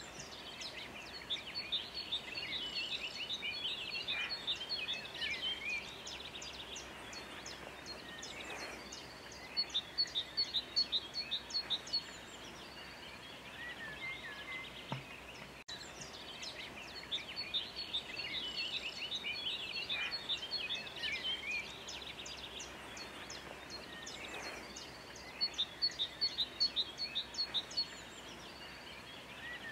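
A chorus of small songbirds singing, full of quick chirps and trills, with a louder run of sharp, rapid notes. The same stretch of birdsong repeats about halfway through.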